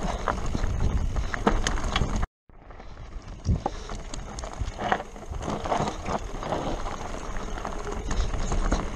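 Mountain bike descending a rocky dirt trail, heard from a camera on the rider: a steady rumble of tyres and wind on the microphone, with rattles and knocks from the bike over stones. The sound cuts out briefly a little over two seconds in, fades back in quieter, and builds again.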